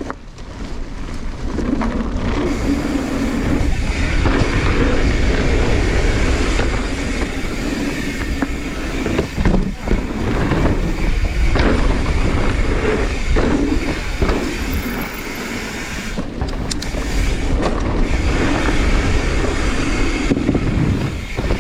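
Mountain bike riding fast down a dirt jump trail: a steady rush of tyres on dirt and wind on the microphone. Bike rattles and several knocks come from jumps and landings, clustered around the middle of the stretch.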